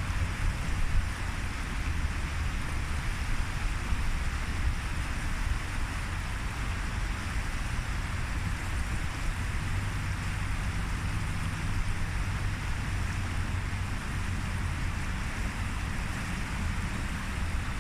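Wind buffeting the microphone with a steady low rumble, over an even rushing noise of flowing river water.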